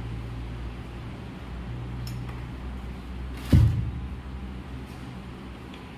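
Handling noise while an oil-bath air cleaner bowl is refilled: a single sharp knock with a short ringing tail about three and a half seconds in, over a steady low hum.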